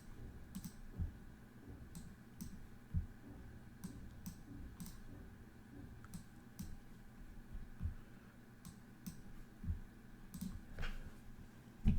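Irregular clicks and taps of a computer keyboard and mouse being worked, a stroke every half second or so, over a low steady hum. There is a louder knock right at the end.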